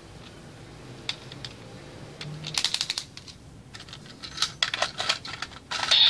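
Hard plastic clicking and rattling from a shokugan Kamen Rider Build Full Bottle toy being shaken and fitted into the Build Driver: a few single clicks, a quick rattling burst about two and a half seconds in, then another run of clicks near the end.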